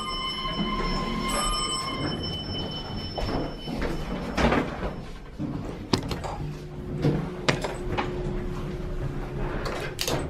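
Elevator arriving: a bell-like chime rings out twice, then the lift's sliding doors run, with knocks and clicks and a faint steady hum from the car.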